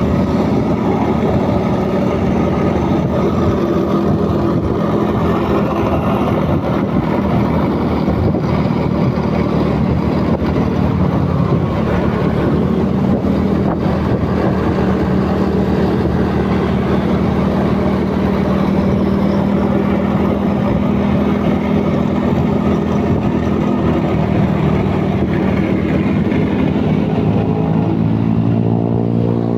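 A large vehicle's engine running steadily close by, a constant drone with no change in pitch.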